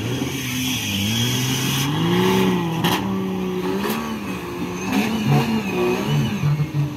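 Engine of an off-road racing side-by-side buggy revving up and down as it drives a dirt track, its pitch rising and falling, with a run of short throttle blips about five seconds in.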